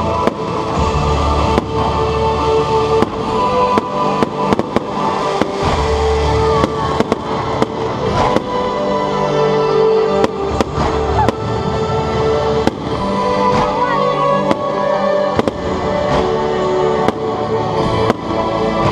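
Aerial fireworks bursting overhead in an irregular run of sharp bangs and crackles, over music with long held notes.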